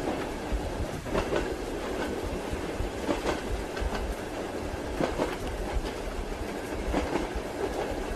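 Train wheels clacking over rail joints over a steady rumbling, rushing running noise. The clacks come in pairs, about every two seconds.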